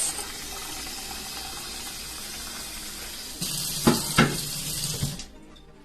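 Water running from a kitchen tap, growing louder about three seconds in with two sharp knocks, then shut off about five seconds in.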